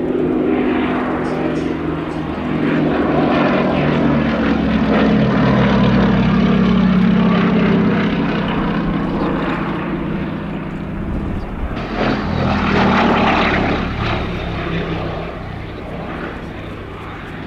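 Vintage propeller aircraft with a radial engine flying past low. The drone is loudest midway and falls in pitch as it goes by. About twelve seconds in the sound changes abruptly to a second, shorter swell of engine noise, which then fades.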